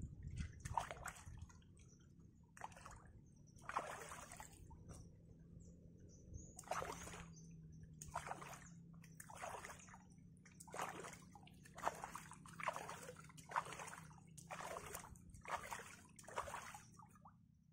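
Water sloshing and splashing in short strokes, roughly one a second, with a pause of a couple of seconds about a third of the way in.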